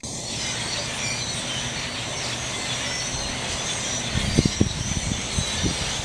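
Outdoor ambience: a steady rushing noise, with low gusts of wind buffeting the microphone from about four seconds in.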